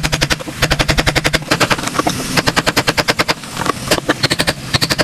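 Rapid hammering on wood: runs of sharp knocks, about seven a second, broken by short pauses, over a faint low hum.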